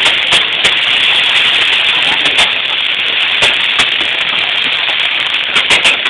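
Fireworks going off: scattered sharp pops at irregular moments, several close together near the end, over a steady din of crowd voices.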